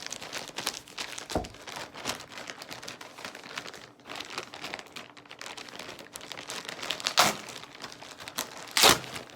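Packaging crinkling and rustling by hand as a subscription box is unpacked, in irregular crackles, with two louder sharp crackles near the end.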